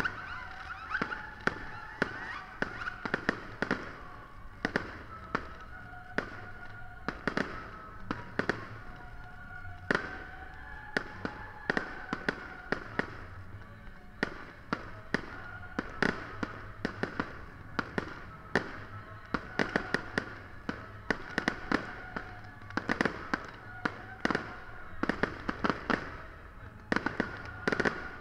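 Aerial fireworks shells bursting in quick succession: a steady run of sharp bangs and crackles, several a second at times.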